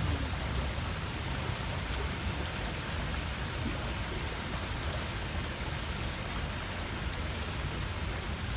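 Steady, even hiss of outdoor background noise with a low rumble beneath it, unchanging throughout.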